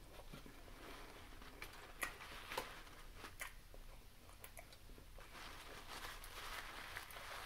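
Faint chewing of a mouthful of BLT sub sandwich, with scattered soft mouth clicks every second or so.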